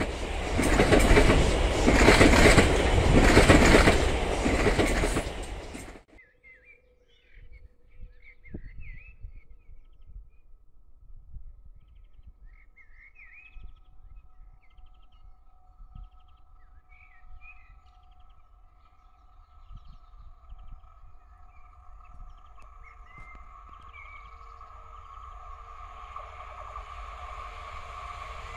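A train passing close, loud and pulsing about once a second, cuts off suddenly about six seconds in. Then small birds chirp while the distant hum of an approaching diesel multiple unit slowly grows louder.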